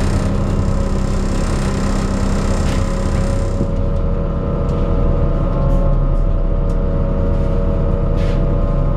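Alexander Dennis Enviro 400 double-decker bus heard from on board while driving: a low engine rumble with a steady pitched groan over it throughout. A hiss runs for about the first three and a half seconds, and a few light rattles or clicks come later.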